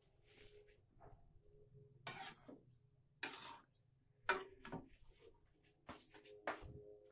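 Kitchen handling noises: about six short scrapes and rustles spread over several seconds, with a faint steady hum beneath.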